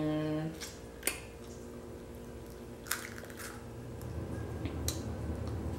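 Crab claw being eaten by hand: a short hummed "mm" right at the start, then wet chewing and a few sharp snaps as the shell is cracked and pulled apart.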